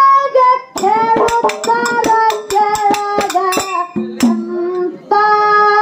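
A young woman singing a Kannada dollina pada folk song through a microphone and PA, holding long notes. From about a second in, a quick run of sharp percussion strikes plays under the voice for a couple of seconds.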